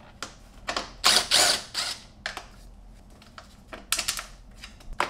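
Cordless drill-driver running in short bursts, the longest lasting about a second, as it backs out a screw holding the intake snorkel's end piece, followed by light clicks of the screw and plastic part being handled.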